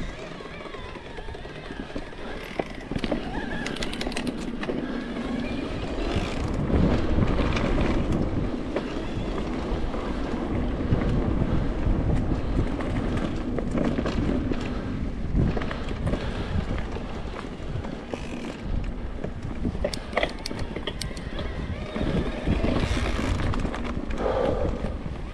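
Cube Stereo Hybrid electric mountain bike being ridden along a trail: tyres rolling over dirt, wind buffeting the microphone, and frequent sharp clicks and rattles from the bike over bumps.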